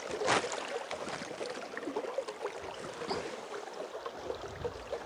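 River water splashing and sloshing close by, as from wading through a river, with one louder splash about a third of a second in.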